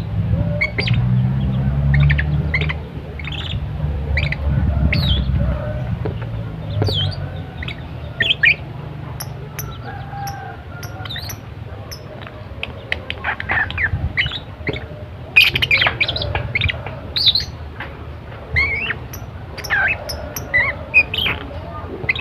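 Lovebird chirping rapidly and continuously in short, sharp, high calls, with a low background rumble under the first few seconds.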